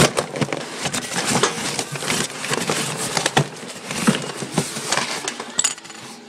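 Handling noise of a package being unwrapped: crinkling and rustling of paper and plastic wrapping with irregular clicks and knocks close to the microphone.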